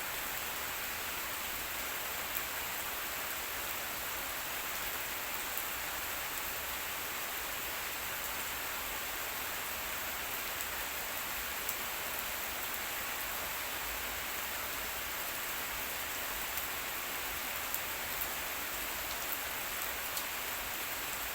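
Steady rain falling, an even hiss with a few scattered sharp drop ticks.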